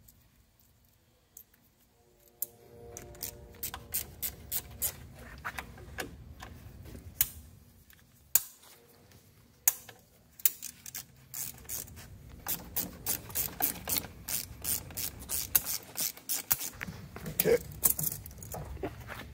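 Hose clamps being loosened with a screwdriver: a long run of sharp metallic clicks as the clamp screws turn, coming quicker and louder in the second half.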